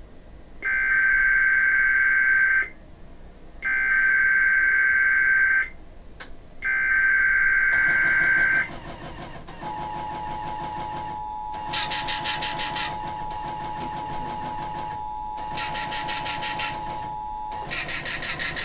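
Emergency Alert System SAME header: three buzzing digital data bursts of about two seconds each, a second apart, encoding a Child Abduction Emergency (Amber Alert). About a second after the third burst the EAS two-tone attention signal (853 and 960 Hz together) sounds steadily for about eight seconds over a noisy broadcast background.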